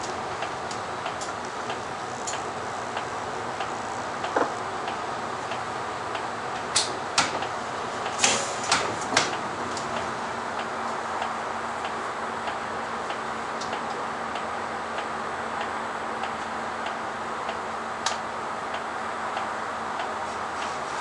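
City bus's turn-signal relay ticking about twice a second over the steady running noise of the stationary bus, with a handful of louder sharp clicks about halfway through and one more near the end.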